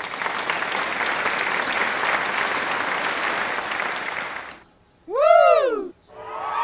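A crowd applauding for about four and a half seconds, stopping abruptly. After a short silence comes one whistle-like tone that glides up and falls back, the loudest sound here, and then crowd noise starts up again near the end.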